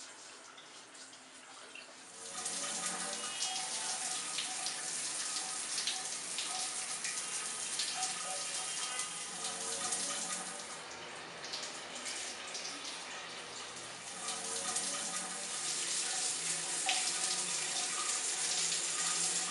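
Shower running, water spraying steadily from a rain-style shower head. It starts about two seconds in, eases off a little midway, then runs fuller again.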